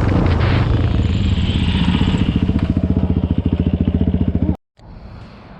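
Single-cylinder four-stroke ATV engine running, its note settling into a slow, even chugging beat. The sound cuts off abruptly about four and a half seconds in, leaving a much quieter background.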